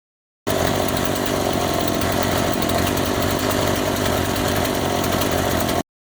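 Chainsaw running at a steady, even speed. It starts abruptly about half a second in and cuts off abruptly near the end.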